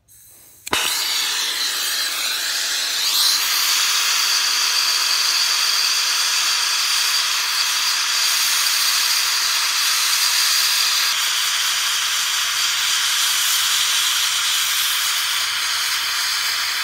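Hose-fed hand gas torch burning with a steady hiss, starting suddenly about a second in, as it heats the thin brass top of a tractor radiator to solder its pinholes.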